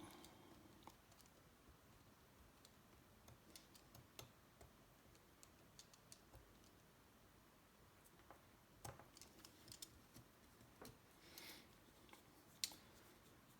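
Near silence, with a few faint scattered clicks and taps from small parts being handled and test-fitted, and one sharper click near the end.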